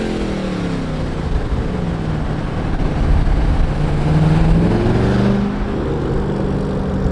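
A 2014 Chevrolet Camaro SS's V8 engine and exhaust under way, heard from outside the moving car: the engine note sags at first, then climbs as it accelerates, with a couple of pitch changes later on.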